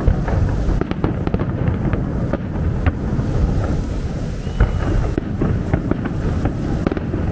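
Fireworks going off in rapid succession: a continuous low rumble of shell bursts with many sharp cracks and bangs on top. A brief high whistle sounds about four and a half seconds in.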